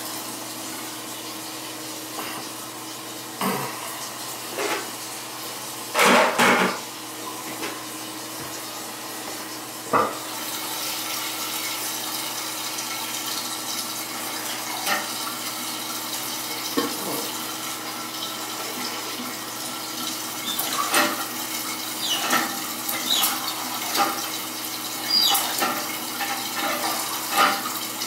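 Bathroom faucet running steadily, with short metallic clinks and knocks of small parts and tools against the fixture. The loudest knock comes about six seconds in, and the clinks come more often near the end.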